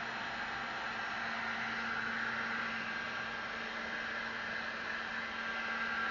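Heat gun running steadily: an even rush of blown air over a constant motor hum.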